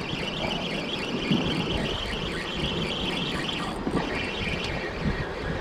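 Spinning reel being cranked to bring in a hooked fish. A light, fast chatter fades out about four seconds in, over a steady rush of wind and water.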